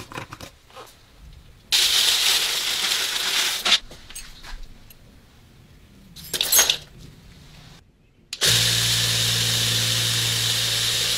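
Vibratory tumbler running with a load of green abrasive media, a steady hiss of churning media over a low motor hum, starting about eight and a half seconds in. Before it come small handling clicks, a hiss lasting about two seconds, and a short rattle.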